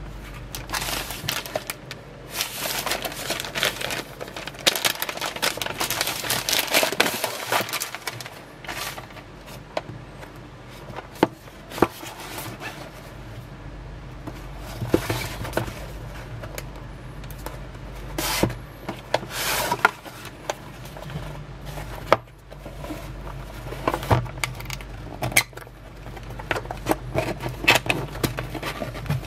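Unboxing handling noise: clear plastic wrap crinkling over the first several seconds, then a cardboard retail box being handled, with scrapes, small knocks and its tuck flap being pried open near the end.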